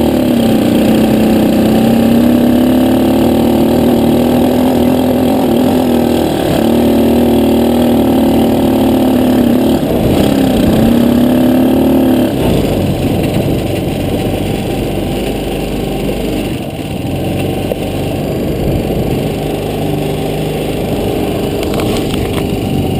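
Jaguar quad bike's engine running under throttle over sand, its revs rising and falling. About twelve seconds in, the clear engine note drops away and a lower, noisier running sound follows.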